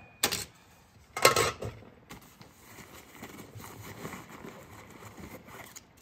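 A click, then a sharp metallic clatter about a second in as a spork is put into a metal mess kit, followed by quiet rustling of gear being handled.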